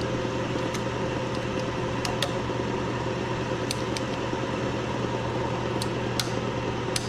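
Steady machine hum in the background, with about eight sharp metallic clicks as a new snap ring is worked into place on an automatic transmission's overdrive unit.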